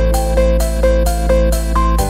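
Background music with a steady beat and a repeating melody.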